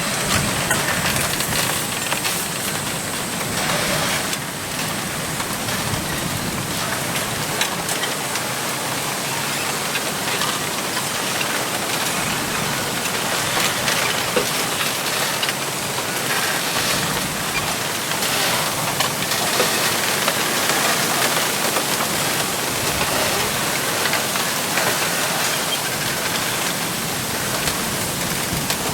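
Wind blowing through a bamboo grove, the leaves rustling in a dense, steady hiss.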